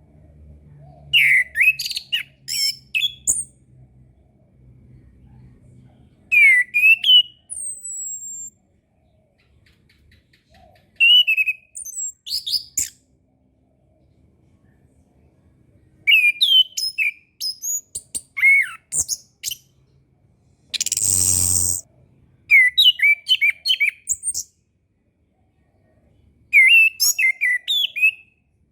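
Chestnut-capped thrush (anis kembang) singing in short, rapid phrases of sweeping whistled notes with pauses of a second or more between them. About two-thirds of the way through there is one brief harsh, rasping burst.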